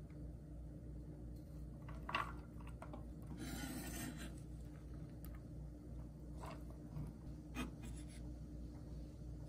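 Chef's knife slicing green onions on a wooden cutting board: a few soft, scattered cuts, with a longer scraping stroke of the blade across the board a few seconds in.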